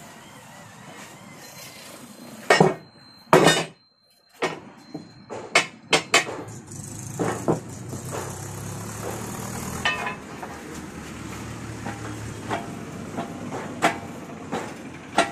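Sharp metal clanks and knocks from a steel leaf-spring leaf being worked in a leaf-spring bending press: two loud clanks a little under three and three and a half seconds in, then lighter scattered knocks.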